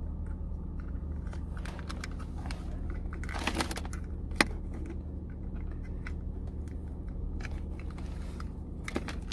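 Light plastic handling noises and a sharp click as a DC barrel plug is pushed into a small plastic LED controller box, over a steady low hum.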